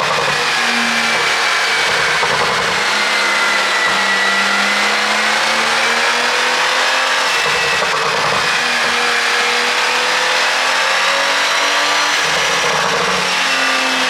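Porsche 911 Turbo S (992) twin-turbo flat-six running steadily and loud, its pitch drifting slowly up and down.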